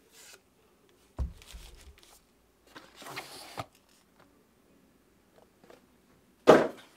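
Cardboard product packaging being handled: a low knock about a second in, a rustling slide of box and paper around three seconds in, and a brief loud scuff near the end.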